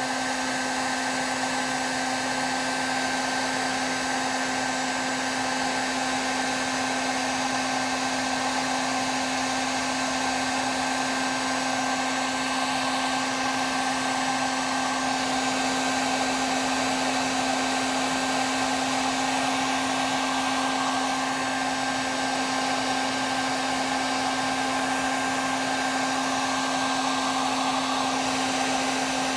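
Electric heat gun running steadily, a constant blowing hiss with a steady hum, as it heats a heat-shrink butt connector until the tubing shrinks onto the wire.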